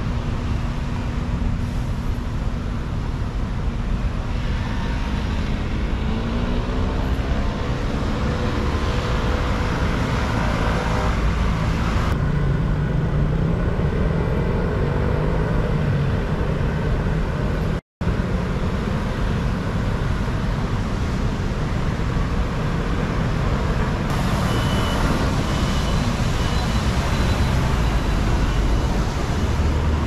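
City road traffic: cars and scooters running past, with an engine climbing and falling in pitch as a vehicle pulls away a few seconds in. The sound cuts out for an instant a little past the middle.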